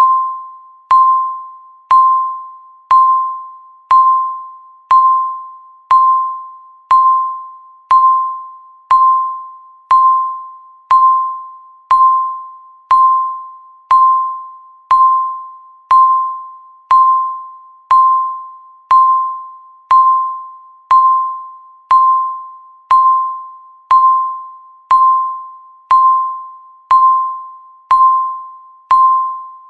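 Countdown timer beeping once every second: a single clear electronic tone with a sharp start that fades away before the next beep, about thirty in a row.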